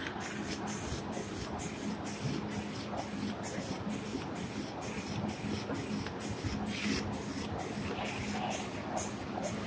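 Automatic cutlery-set packing machine running, its mechanism ticking in a steady rhythm about three times a second over a constant hum.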